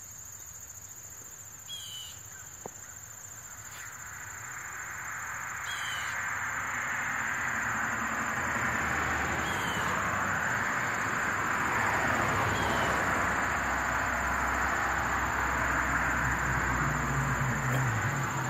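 Steady high-pitched insect drone with a short falling chirp repeating every few seconds. From about four seconds in, a broad rushing noise swells and stays loud, drowning out the insects.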